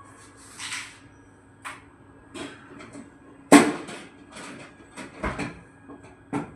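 Irregular knocks and clicks of something being handled, the loudest a sharp knock about halfway through that rings briefly, over a faint steady hum.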